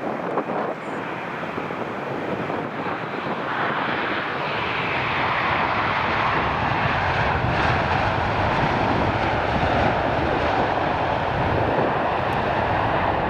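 Jet airliner's engines: a loud rushing noise that swells about four seconds in and then holds steady as the plane goes by.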